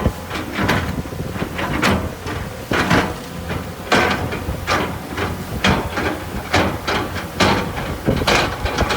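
Heavy earthmoving machinery working gravel and stone: a steady low engine drone with repeated, irregular metallic clanks and scrapes, about one or two a second.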